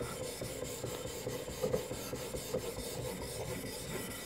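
A sharpening stone on a fixed-angle knife-sharpening system rubs back and forth along a knife's edge in continuous scraping strokes. This is the grinding stage, working to raise a burr along the edge while the bevel widens.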